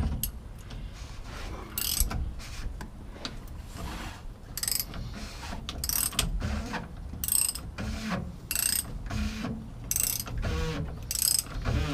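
Ratchet wrench tightening the fuel filter housing cap on a Ford 6.7L Power Stroke diesel, clicking in short runs about every second as each back-stroke resets the pawl.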